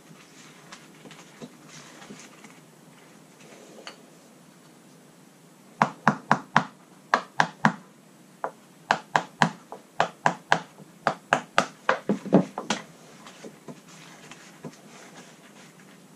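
Hand-tool work on a fibreglass jet ski deck: runs of sharp knocks and taps, about four in quick succession, repeating roughly once a second from about six seconds in until about thirteen seconds, with only faint handling clicks before that.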